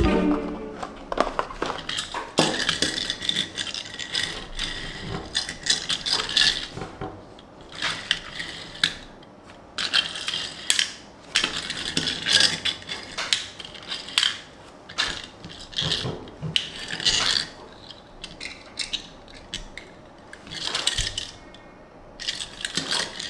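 Hands handling a Tomica die-cast toy car and its small cardboard box: irregular clicks, taps and light scrapes, with short pauses between them.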